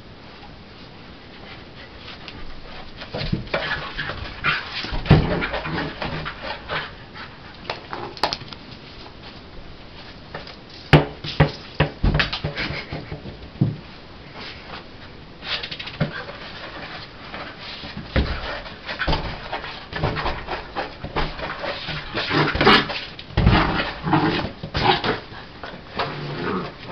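A Blue Heeler and Border Collie mix puppy panting and giving occasional short barks as it plays with an oversized tennis ball on a tile floor. Irregular knocks and scuffs of the ball and the puppy's movements start about two seconds in and keep going.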